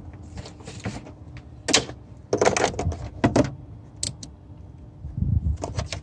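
Irregular clatter and jangling of metal items being handled, in several short bursts, over a faint steady hum.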